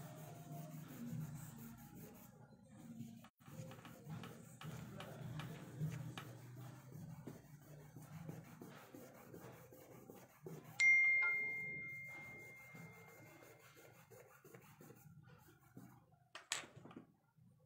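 Charcoal pencil scratching and rubbing on drawing paper in short, repeated shading strokes. About eleven seconds in, a single bell-like ding rings out at one steady pitch and fades over a couple of seconds; a sharp click comes near the end.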